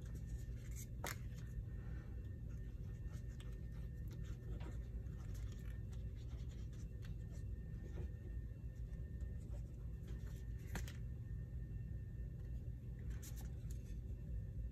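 Faint paper-crafting handling: a glue bottle's fine tip scraping over cardstock and paper pieces being moved and pressed down. There are soft scattered clicks and scrapes, the clearest about a second in and again near eleven and thirteen seconds, over a steady low hum.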